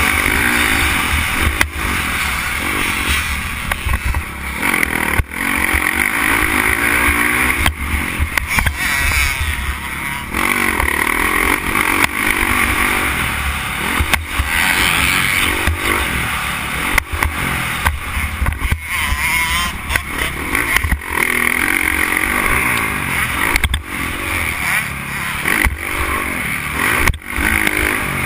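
Dirt bike engine revving up and down as it accelerates and shifts around a motocross track, heard from a helmet camera on the rider.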